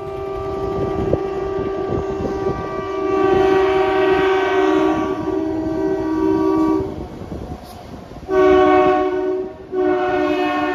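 Train horn sounding a long chord-like blast of about seven seconds, then two shorter blasts close together near the end.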